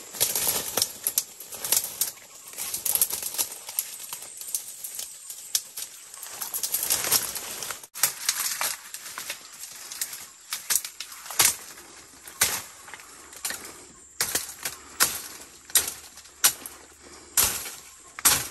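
Footsteps crunching through dry leaves and twigs on the forest floor, with rustling of brushed-aside undergrowth and sharp snaps of breaking sticks, coming about once a second in the second half.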